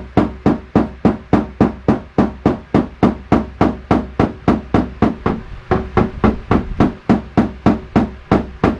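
Knockdown hammer with a rubber ball screwed on its tip tapping lightly and rapidly on a steel car fender, about four or five even taps a second. This is paintless dent repair: knocking down the crown around a pushed-out dent and blending the metal back flat.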